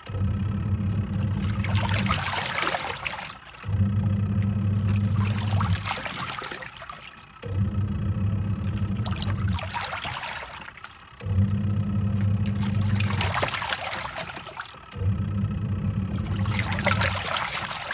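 Twin-tub washing machine's wash tub at work: the pulsator motor hums for about three seconds, stops for a moment, then starts again, about every four seconds, with the water and laundry sloshing throughout.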